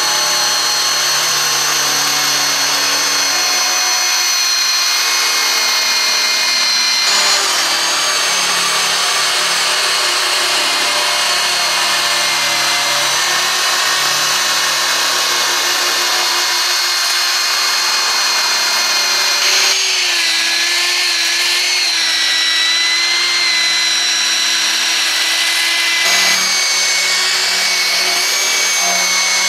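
Corded electric drill running continuously with an abrasive wheel pressed against the bare aluminum boat hull, a high motor whine over a steady scouring grind. The whine shifts in pitch a few times.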